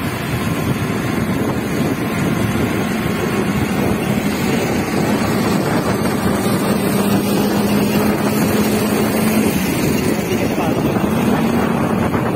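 Wind rushing over the microphone of a moving motor scooter, with the scooter's engine humming steadily underneath.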